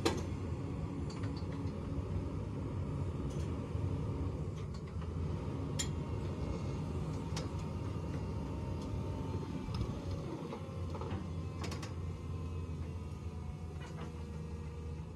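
Tracked hydraulic excavator's diesel engine running steadily as it holds a rock-crawler Jeep up from its bucket, with a few light clicks and creaks, twice in quick clusters.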